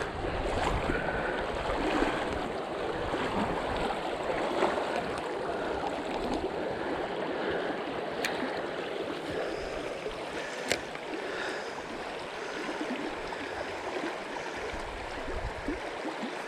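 Steady rushing and burbling of water over a shallow, rocky trout-stream riffle, with two short sharp clicks about halfway through.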